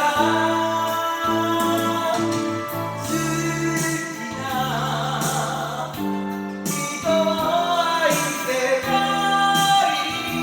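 A singer performing a Japanese 1980s city-pop song in the original key over a karaoke backing track; the vocal is raw, with no pitch correction or other processing.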